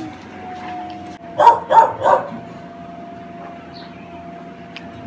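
A dog barking three times in quick succession, about a second and a half in, over a faint steady tone.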